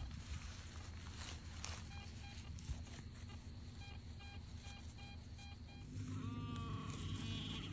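Garrett metal detector beeping in short repeated bleeps as the coil is swept over an open hole, then, about six seconds in, a Garrett pinpointer giving a warbling buzz as it is pushed into the dirt.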